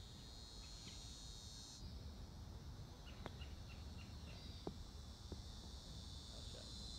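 High, steady insect chorus of crickets or cicadas that cuts off about two seconds in and starts up again near the end, over a low rumble. A few brief sharp chirps stand out in the middle.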